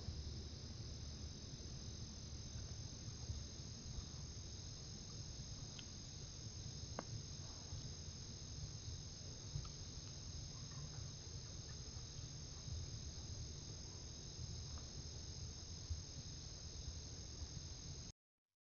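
Night crickets chirring in a steady high-pitched chorus over a low steady rumble, with a few faint ticks; it cuts off near the end.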